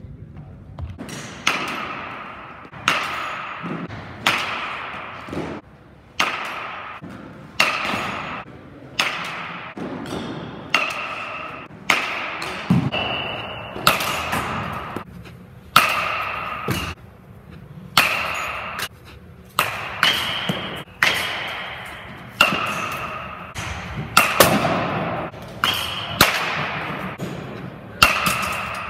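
Metal baseball bats hitting pitched balls in batting practice: a sharp ringing ping about every second to second and a half, some two dozen hits, starting about a second and a half in. Each ring dies away before the next, and its pitch differs slightly from hit to hit.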